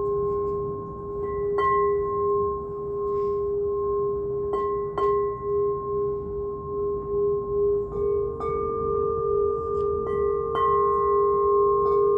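Alchemy crystal singing bowl tuned to G sharp ringing with a sustained tone, tapped several times so the ring swells again. About eight seconds in, a second bowl a little higher in pitch joins, and the two tones beat against each other with a wavering pulse.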